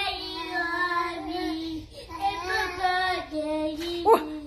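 A young child singing in long, drawn-out notes, with a short break about two seconds in.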